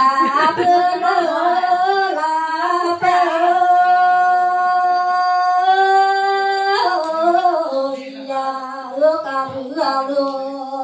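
A woman singing a Tày lượn folk melody solo, drawing out long wavering notes, with one note held steadily for about three seconds in the middle.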